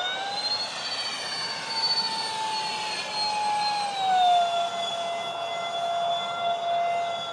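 Whine of the Freewing Su-35 model jet's twin electric ducted fans, rising sharply in pitch as the throttle comes up, holding, then dropping to a lower steady pitch about four seconds in.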